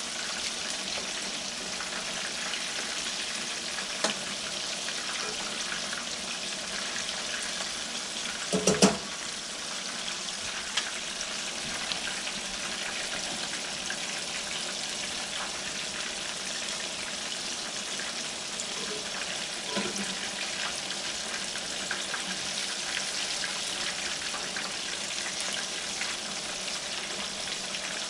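Pieces of grass carp deep-frying in hot oil, a steady sizzle, with a brief loud clatter about nine seconds in and a couple of lighter knocks.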